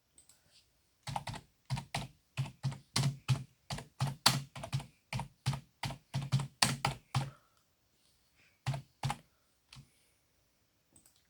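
A run of sharp taps or clicks, about three a second for some six seconds, then three more after a pause.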